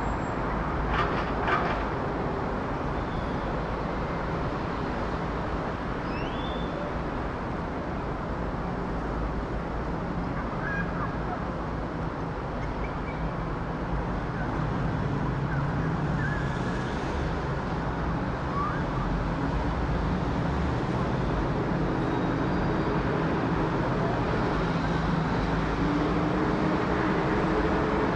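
Boeing 777-300ER's twin GE90 turbofans on climb-out: a steady, distant jet roar that grows gradually louder as the airliner comes overhead. A few short bird chirps sound over it.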